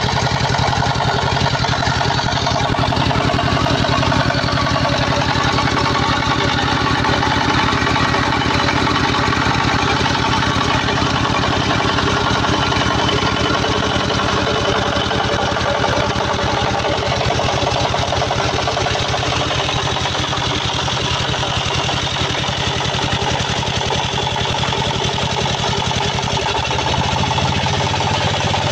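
Small engine running steadily under load, belt-driving a centrifugal water pump, with a rapid, even run of firing pulses. The low hum shifts slightly near the end.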